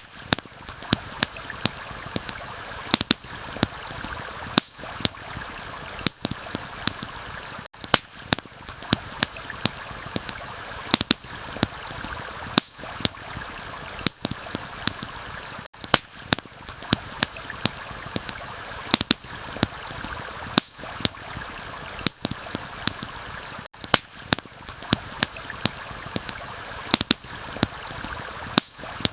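Steady rushing of running water, as from a stream, layered with frequent sharp crackles and pops of a wood campfire. The bed briefly drops out about every eight seconds.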